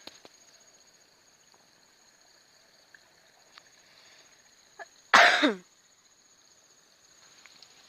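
A person coughs once, short and loud, about five seconds in, the cough ending in a falling voiced tail. Under it, a steady high insect chorus keeps up throughout.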